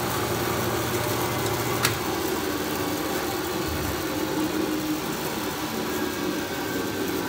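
Bandsaw running with its blade free, not cutting, a steady motor and blade hum. There is a single sharp click about two seconds in.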